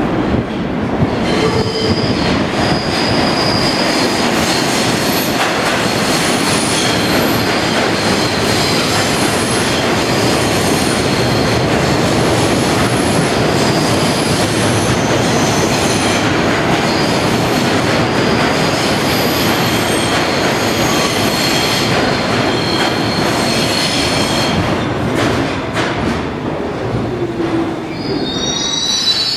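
R62 subway train pulling into the station and braking: a loud, steady rumble of steel wheels on rail, with high wheel squeals coming and going throughout. Near the end a short squeal slides in pitch as the train slows to a stop.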